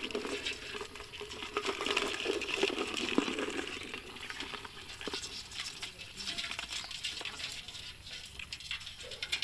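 Live crabs and wet water weeds being handled: the hard shells and legs of the crabs make scattered clicks and scratching, denser in the first few seconds, then there is wet rustling and patter as a hand rummages through the weeds in a metal pot.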